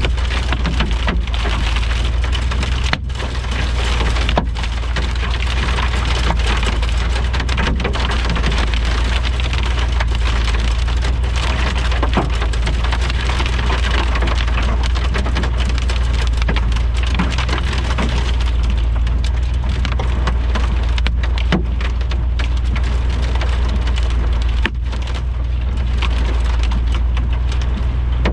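Heavy rain and hail from a severe thunderstorm pounding down. It is a loud, dense downpour full of sharp individual hits over a steady low rumble.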